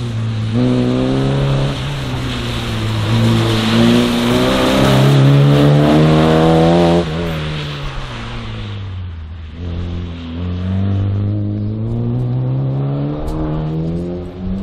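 Mk1 Volkswagen Golf slalom car's four-cylinder engine revving hard through the cones, its pitch climbing in long pulls. About seven seconds in the revs drop sharply as the driver lifts off, then climb again near the end.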